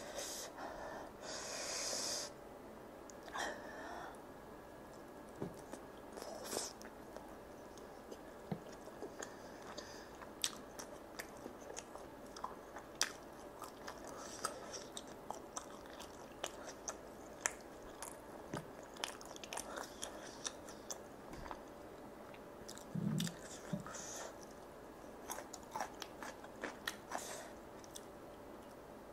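Close-miked chewing of sauce-glazed charcoal-grilled chicken skewers, with many short wet clicks and smacks of the mouth, and a bite near the end.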